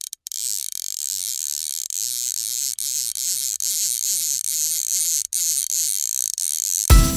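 Electronic sound effect: a steady high hissing buzz with a faint low wavering tone beneath, briefly dropping out just past five seconds. It gives way near the end to music with drum hits.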